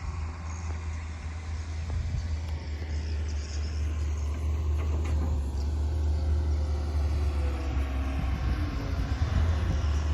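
Excavator's diesel engine running steadily as it works, a low drone that grows a little louder over the span.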